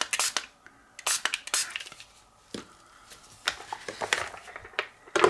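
A handful of quick squirts from a water spray bottle, then plastic clatters and knocks as the salad spinner's lid is handled and fitted on, with the loudest knock near the end.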